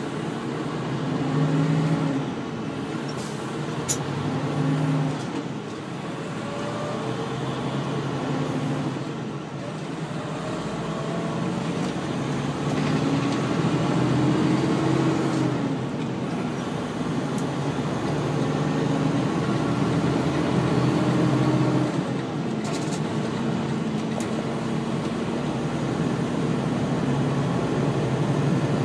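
Semi-truck's diesel engine and road noise heard from inside the cab on the highway. The engine note rises and dips several times over the first few seconds, climbs again near the middle, then holds steadier over the constant rush of tyres and wind.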